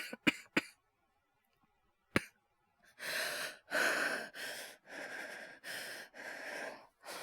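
A man coughs three times in quick succession, then once more about two seconds in. From about three seconds in he breathes fast and heavily, about seven breaths in a row. The coughing and laboured breathing are a voice actor's performance of a man sick with fever.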